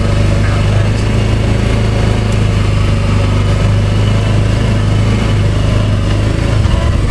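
Vehicle engine running steadily under way, a constant low hum that shifts slightly in pitch about six and a half seconds in.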